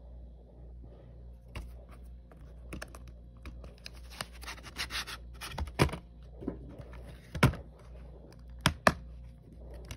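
A plastic DVD case and its cardboard slipcover being handled: rustling and scraping as the case slides out of the sleeve, with several sharp plastic clicks, the loudest in the second half, and two close together near the end as the case is snapped open.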